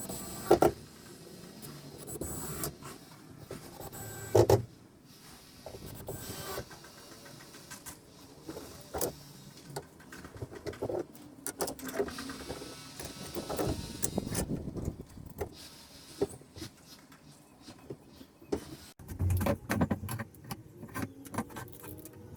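Wooden pieces being handled and worked: irregular knocks and clicks, with squeaky rubbing of wood on wood between them.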